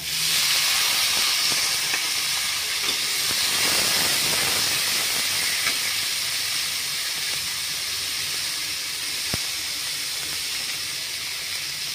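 Chopped tomatoes hitting hot oil in a steel kadai: a loud sizzle that starts all at once as they drop in, then settles into a steady frying hiss that eases a little as they cook.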